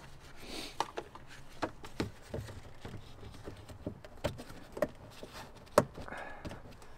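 Plastic headlight access cover in a car's wheel-arch liner being fitted by hand: scattered light clicks and taps, with one sharper click near the end as the cover snaps into place.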